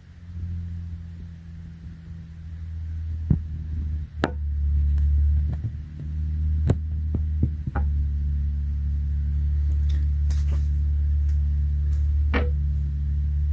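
A steady low hum, with a handful of sharp metallic clicks and knocks from a long bar and socket being worked on a car's serpentine belt tensioner.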